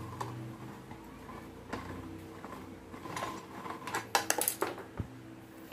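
Light metallic clicks of a T-handle Torx key working a small bolt loose, then a quick rattle of clinks about four seconds in as the loosened bolt drops down inside the motorcycle's body panel, over a faint steady hum.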